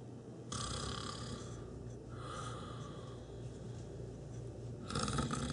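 A man snoring in his sleep: breathy snores starting about half a second in, again at about two seconds, and once more near the end.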